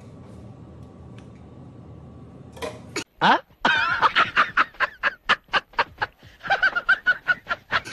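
Faint room tone for about three seconds, then, after a brief drop to silence, a man laughing hard in rapid, rhythmic bursts, about four a second: a comedy-film laugh clip edited in.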